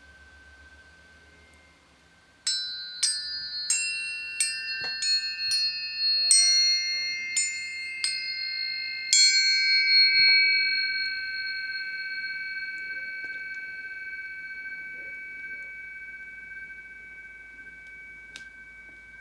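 Planetary tuning forks struck one after another, about ten strikes over some seven seconds. Their ringing tones stack into a shimmering chord that slowly fades, over a steady high tone that holds throughout.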